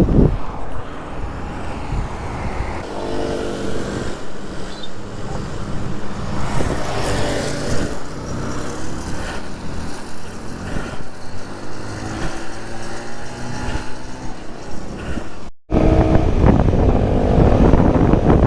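Motorbike on the road: its engine running under wind buffeting the microphone and road rumble, the engine note rising and falling now and then. Near the end the sound cuts out for an instant and comes back louder.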